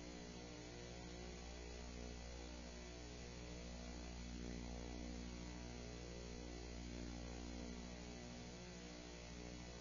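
Faint, steady electrical hum with many evenly spaced overtones, unchanging throughout.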